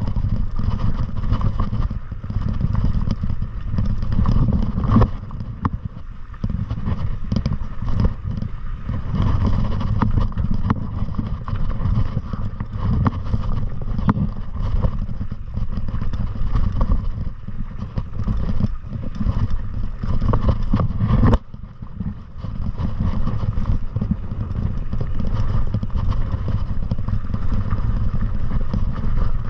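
Wind rumbling on the microphone during a fast downhill ride on a rough trail, with frequent clicks and clattering from the ride over rocks; the loudness dips briefly about two-thirds of the way through.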